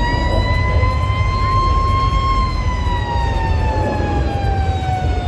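Siren wailing: one long tone that slowly rises, peaks about two seconds in, then glides steadily down, over a steady low rumble.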